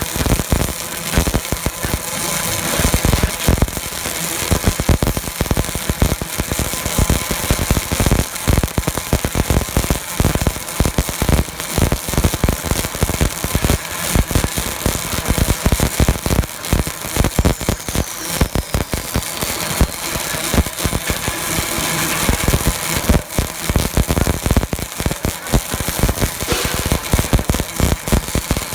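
Welding machine on an LPG cylinder line at work, giving a dense, irregular crackle of welding with many sharp snaps throughout.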